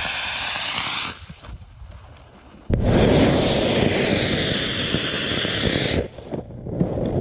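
Solid-propellant model rocket motor firing on the pad: a loud rushing hiss that stops about a second in, then after a quieter gap a fuller, deeper roar that starts suddenly near three seconds and runs about three seconds before cutting off, with a shorter burst near the end.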